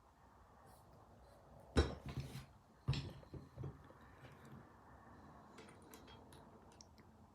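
Metal vise parts knocking together as they are handled during assembly: two sharp clanks about a second apart, then lighter clicks and taps.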